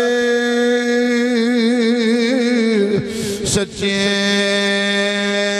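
A man's voice chanting a verse in long drawn-out notes with a slow vibrato. About three seconds in he breaks briefly for breath and a word, then holds another long note.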